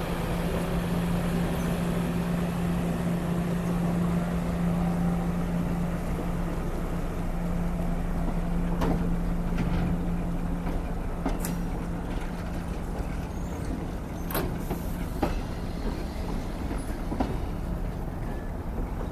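Passenger train rolling slowly past as it backs in, with a steady low hum that fades after the first half. Over a constant rumble, a few sharp clicks and knocks of the wheels on the rails come from about halfway through.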